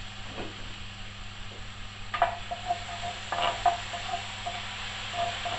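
Crushed garlic sizzling in a hot pan as it is stirred, with a few short scrapes of the utensil against the pan, about two seconds in and twice more around the middle.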